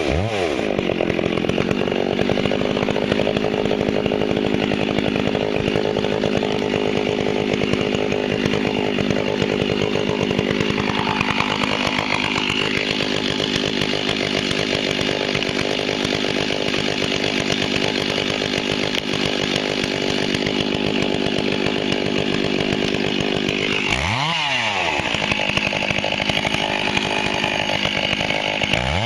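Large Stihl two-stroke chainsaw running at high revs under load while cutting willow. The engine speed drops and picks back up right at the start, again about 24 seconds in, and once more at the very end, as the throttle is eased off and reapplied between cuts.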